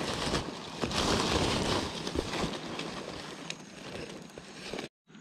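Close crackly rustling against the microphone, with small scattered clicks, as a woven plastic sack and a jacket rub near it; it cuts off abruptly near the end.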